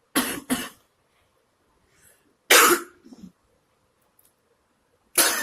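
A person coughing: two quick coughs at the start and another about two and a half seconds in. A louder, continuing sound begins just before the end.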